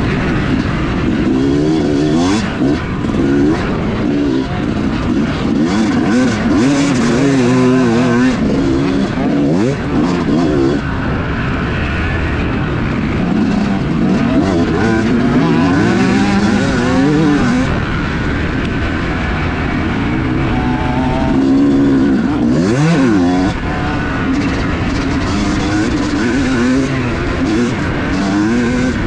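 Yamaha YZ250 single-cylinder two-stroke motocross engine heard on board while riding, revs rising and falling over and over as the throttle is opened and chopped through the gears and corners, with a sharp climb in revs about three-quarters of the way through.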